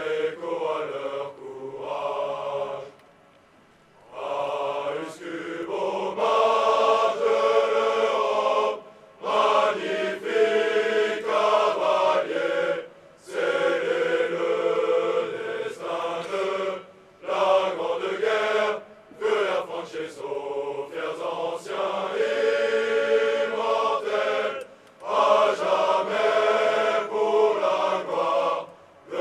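Massed male voices of military cadets singing a song together in unison, line by line, with short breaks for breath between phrases.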